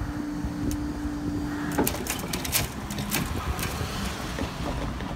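Level crossing barriers rising: a steady hum from the barrier mechanism that stops about two seconds in as the booms reach upright, followed by a series of sharp clicks and clunks as they settle, over a low rumble.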